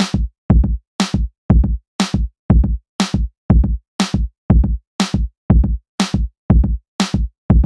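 Background electronic music: a drum-machine beat with a kick about twice a second and a sharper, snare-like hit on every other beat.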